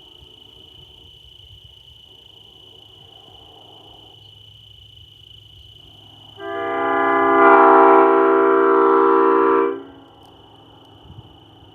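Multi-chime locomotive air horn blown in one long chord of about three seconds, swelling up over its first second and then holding steady before cutting off. A low rumble runs underneath.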